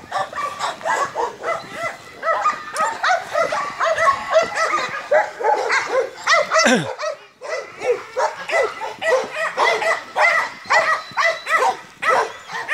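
Dogs barking in a rapid, overlapping run of short barks. A falling whine comes about six and a half seconds in, then a short lull before the barking picks up again.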